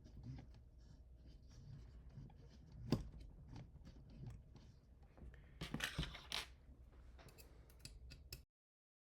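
Hands working on printer parts: scattered small clicks and scrapes, a sharp click about three seconds in, and a short run of louder rasping scrapes around six seconds in. The sound cuts off abruptly near the end.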